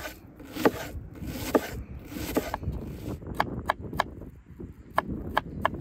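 Kitchen knife cutting a red onion on a wooden cutting board: three slower slicing strokes about a second apart, then quicker, sharper knocks of the blade on the board.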